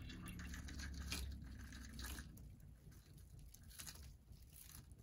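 A few faint, soft taps and rustles as crushed cookie crumbs are tipped from a plastic scoop onto a smoothie in a glass.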